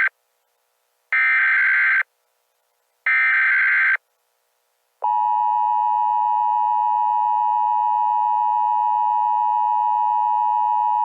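Emergency Alert System tones: the end of one SAME header data burst and two more one-second digital data bursts with silences between, then, about five seconds in, the steady two-tone EAS attention signal starts and holds.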